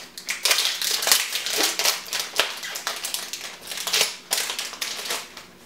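Foil wrapper of a Yu-Gi-Oh booster pack crinkling as it is torn open and handled, in an irregular run of loud rustling bursts that stops shortly before the end.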